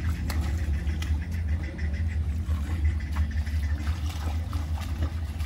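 A steady low rumble with a few faint ticks.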